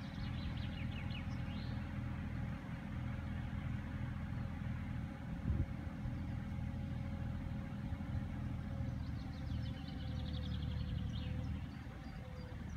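Mini excavator's engine running steadily, a low even hum with a faint steady whine above it. A single low knock comes about halfway through.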